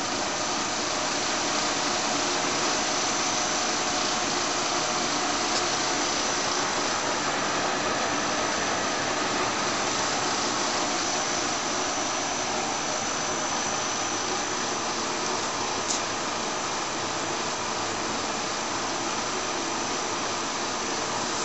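Monarch 10EE lathe running steadily under power, set up for threading with the threading handle engaged, with a steady high whine over the machine's running noise. A short click about 16 seconds in.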